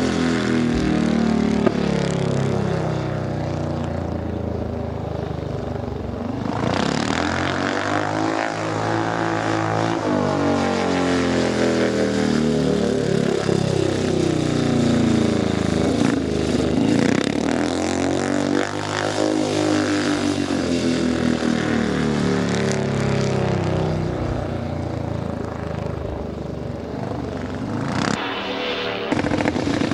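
Single-cylinder speedway motorcycle engines running as the bikes lap the dirt track. The pitch rises and falls with the throttle and as each bike passes, swelling loudest several times.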